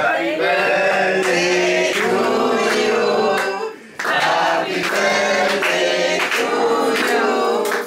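Several voices singing together in sustained phrases, with a brief break about four seconds in.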